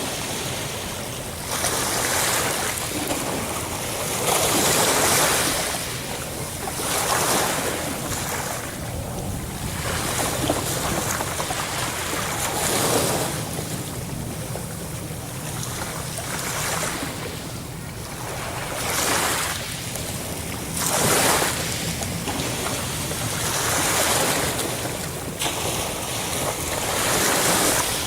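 Ocean waves breaking and washing up the shore, a surge of surf every two to four seconds over a steady low rumble of the sea.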